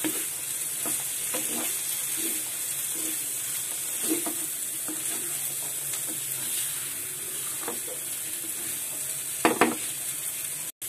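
Black chickpea, potato and tomato masala sizzling in a frying pan as it is stirred and turned with a spatula, which scrapes and knocks against the pan now and then, most strongly near the end. It is the dry-frying (bhuna) stage, where the spiced mixture is fried down.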